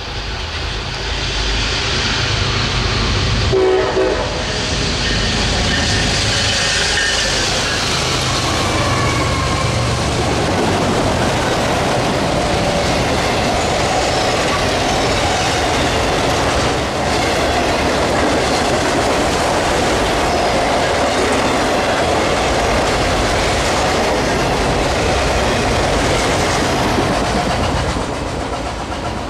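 CSX ST70AH (SD70ACe-T4) diesel locomotive approaching and passing, its engine loud in the first seconds, with a short horn note about four seconds in. Autorack freight cars then roll by with steady wheel clatter on the rails, which drops away near the end as the last car passes.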